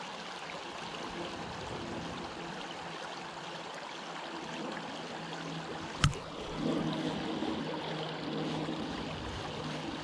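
Shallow creek water running steadily. About six seconds in there is one sharp click, and after it the spinning reel is cranked with a low, pulsing whir as the spinner is retrieved.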